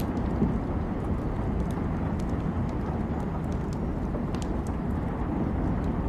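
A steady low rumble of rain and storm, with a wood fire's small crackles and pops scattered over it every second or so.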